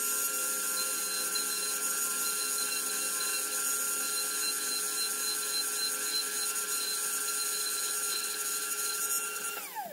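Dremel rotary tool running at a steady whine as its bit grinds window openings into the plastic model hull. Near the end it is switched off and its pitch falls quickly as it spins down.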